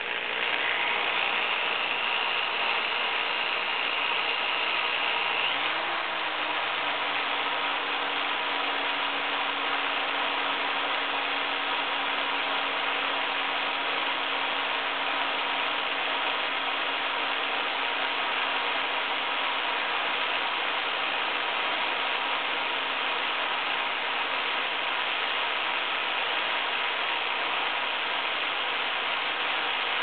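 Electric drill running continuously with a small 3/32-inch pilot bit boring into the cylinder of a tubular lock. A high whine gives way to a lower steady hum about six seconds in.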